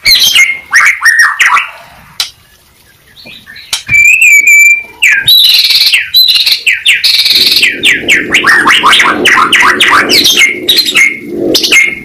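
White-rumped shama (murai batu) singing in full voice. A burst of varied phrases comes first, then a short pause and a held whistle, then a long, fast run of short notes through most of the second half.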